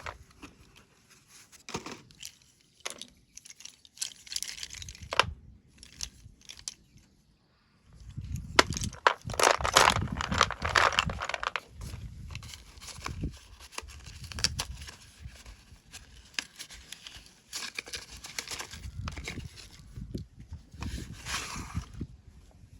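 Close-miked crunching of slate pencils being bitten and chewed: sharp snaps and crisp crackly bursts in irregular clusters, loudest about a third of the way in, with a short lull just before.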